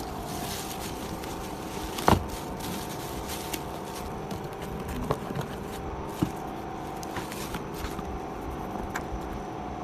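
Scattered knocks, clicks and scrapes of things being handled, with one louder knock about two seconds in, over a steady hum.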